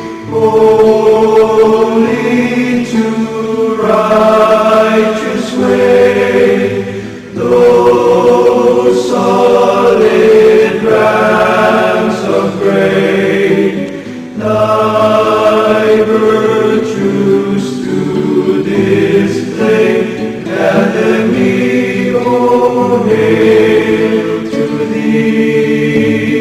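Choir singing a slow hymn in sustained chords, phrase by phrase, with brief breaths between phrases.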